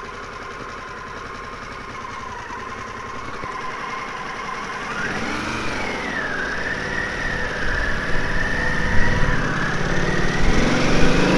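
Harley-Davidson Pan America 1250's V-twin engine idling steadily, then pulling away about five seconds in, its pitch rising as it accelerates and growing louder toward the end.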